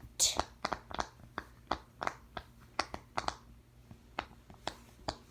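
Silicone pop-it fidget toy being pressed, giving a quick, irregular run of small sharp pops, about four a second.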